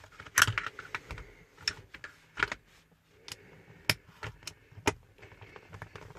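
Socket set and ratchet being handled while a 7 mm socket is picked out: about a dozen irregular sharp metal clicks and clinks.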